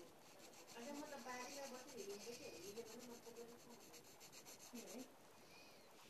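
Faint, rapid scratching of a drawing tool on paper as a picture is drawn, the fine strokes stopping about five seconds in.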